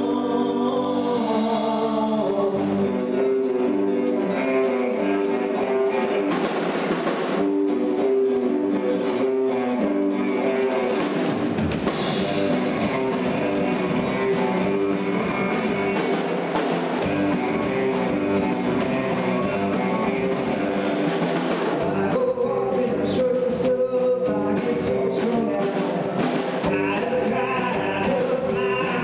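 Rock-style band music with a singer, guitar and drum kit.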